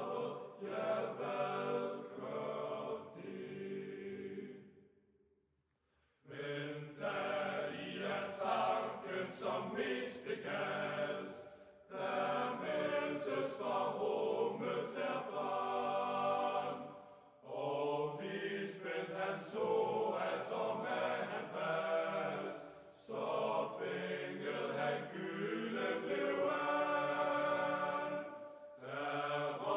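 Choral singing in slow, sustained phrases separated by short breaks; it fades to silence about five seconds in and comes back about a second later.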